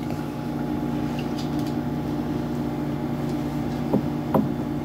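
A steady low mechanical hum, made of several fixed tones, with two light clicks about four seconds in.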